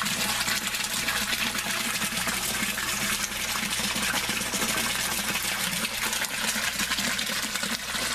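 A stream of water pouring from a PVC pipe elbow into a fish tank with the inlet valve open all the way, a steady splashing rush that does not change.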